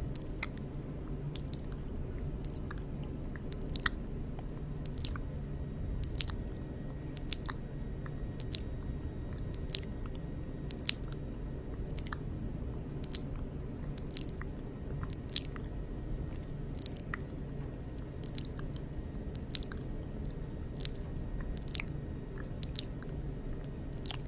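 ASMR mouth sounds close to the microphone: short wet clicks and smacks, irregular, roughly one or two a second, over a steady low rumble.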